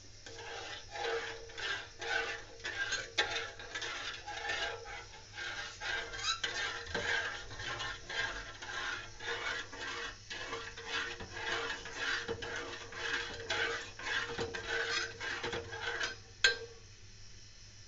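Metal spoon stirring and scraping hot milk in a metal pot on a gas stove, about two strokes a second, as the milk is boiled down to thicken for yogurt. The stirring stops with one sharp knock of the spoon against the pot.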